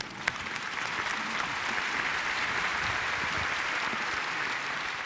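Audience applauding, building up over the first second and easing off slightly near the end.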